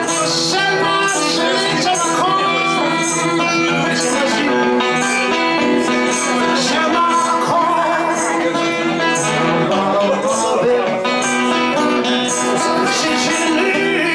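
Music with sustained pitched notes and a regular beat of sharp, high percussion hits.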